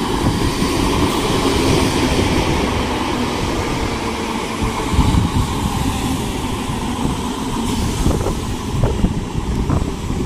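TfL Rail Class 315 electric multiple unit running past the platform: steady rumble of wheels on the rails and running gear, with a run of sharp clacks near the end as the wheels cross rail joints.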